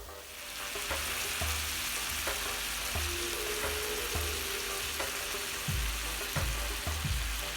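Marinated mutton chops frying in butter and oil on a grill pan: a steady sizzle that comes up right at the start and holds. A regular low beat of background music runs underneath.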